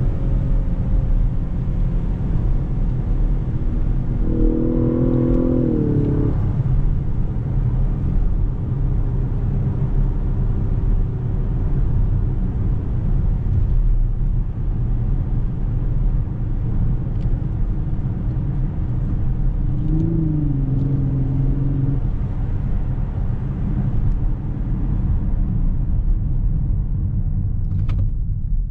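Inside the cabin of a 2019 Lexus LS 500 on the move: its 3.5-litre twin-turbo V6 and the tyres make a steady low rumble. Two brief swells in pitch rise over it, one about five seconds in and one around twenty seconds. The hiss fades near the end.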